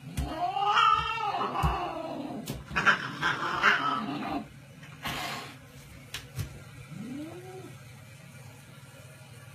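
A cat gives a long yowl that rises and falls, then hisses, as it swats at a German shepherd; a couple of sharp knocks follow, and a short low whimper about seven seconds in.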